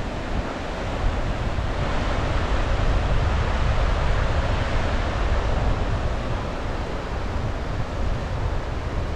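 Sea waves breaking and washing up the beach, the hiss swelling over a few seconds and then easing, with wind rumbling on the microphone.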